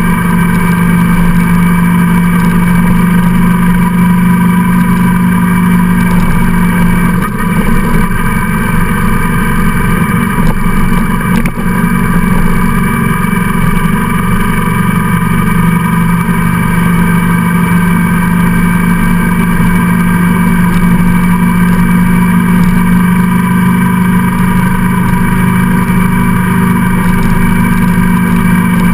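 Motorcycle engine running steadily at cruising speed, with wind noise. The engine note eases about a quarter of the way in and comes back up about halfway through.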